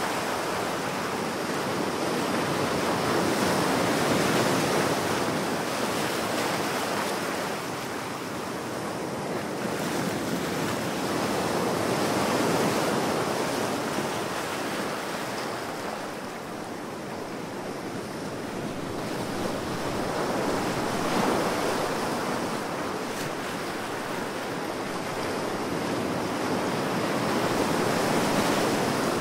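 Ocean waves breaking: a continuous rush of surf that swells and eases about every eight seconds.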